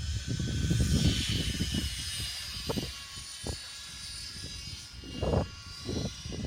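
GAUI NX4 radio-controlled helicopter flying, its rotor and drive whine faint behind strong wind buffeting the microphone. The wind gusts are loudest in the first couple of seconds and come back in short bursts near the end.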